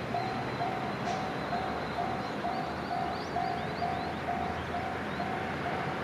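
Japanese railway level-crossing alarm ringing, an electronic bell tone repeating about twice a second, warning that a train is approaching.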